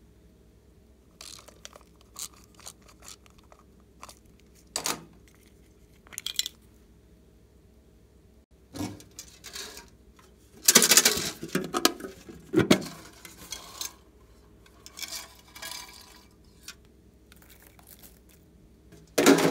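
A decorated metal tin being handled: scattered light taps and clicks, then a louder clatter of the tin and its lid lasting about two seconds midway, and a sharp knock near the end.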